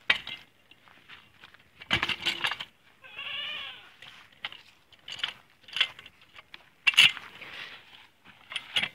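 Steel LogOx log tool clanking and knocking as its hook and foot are set against a log and levered to roll it. A brief pitched sound lasting under a second comes about three seconds in.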